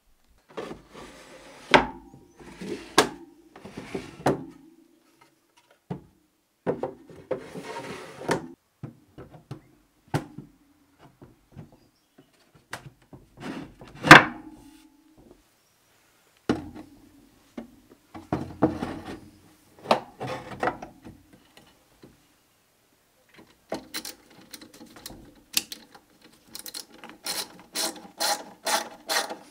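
Wooden cabinet drawers sliding on their runners and knocking shut, several times over, with one loud knock midway. Near the end a ratchet screwdriver clicks steadily, about three clicks a second, as it drives a screw.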